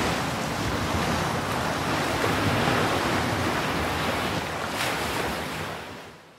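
A steady rushing wash of noise like ocean surf, laid under the opening title cards, fading out near the end.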